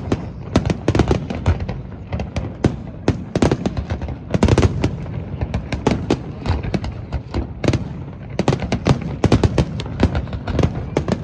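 Aerial fireworks shells bursting in quick, irregular succession, with a dense run of bangs near the end.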